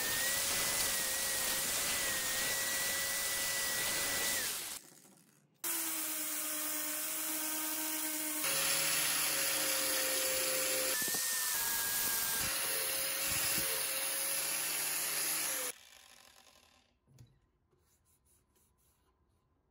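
Power sander with a round sanding disc running steadily against a strip of hardwood: a steady whine over a rough sanding hiss. The sound breaks off abruptly and resumes a few times, then stops about three-quarters of the way through, leaving near silence.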